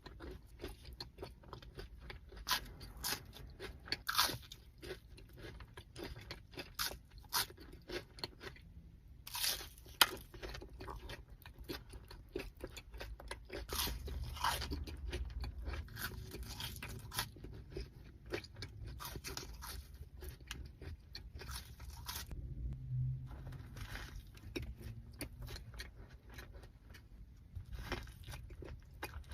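A person biting into and chewing crunchy food, with many irregular crunches throughout.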